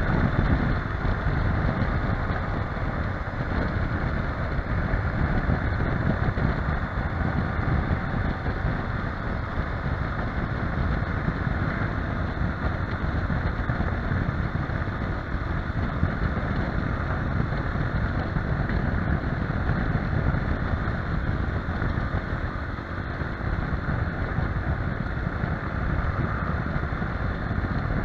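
Wind rushing over the microphone of a camera mounted on a moving motorcycle, with the Yamaha Ténéré 250's single-cylinder engine running beneath it. The sound is a steady, dense rush.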